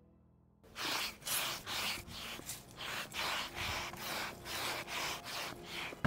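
Broom sweeping brick pavers in brisk, repeated scraping strokes, about two a second, starting about half a second in.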